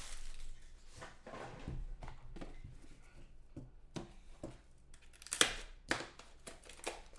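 Trading-card pack wrapper rustling and crinkling in the hands as the pack is handled, with two sharper crackles about five and a half and six seconds in.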